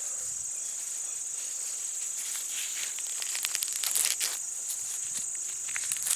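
Steady high-pitched chorus of field insects such as crickets, with a few dry rustles and crackles about four seconds in and again near the end.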